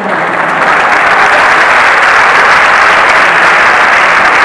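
A large theatre audience applauding, loud and steady after swelling over the first second.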